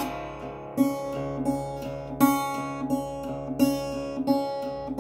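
Acoustic guitar in open C# tuning played slide style: a steady bass drone under wavering, gliding melody notes, with a fresh pluck about every second and a half.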